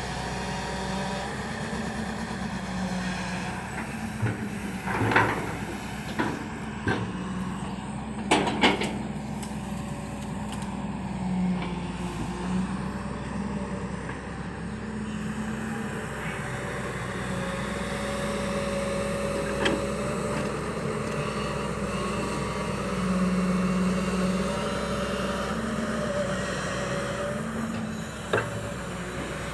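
Excavator's diesel engine running steadily under load, with a handful of short sharp knocks and clanks from the working machine.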